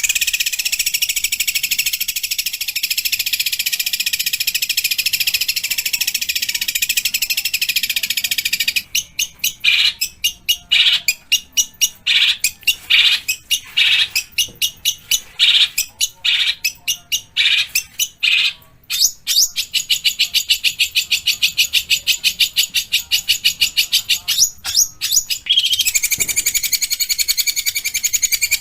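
Long-tailed shrike (pentet) singing harsh, rapid rattling phrases. It gives a continuous fast rattle for the first several seconds, then a run of short separate harsh notes with brief gaps, then a long rattle again.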